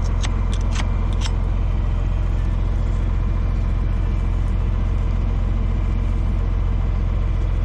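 Tractor engine running steadily at a low, even pitch, with a few sharp clicks in the first second.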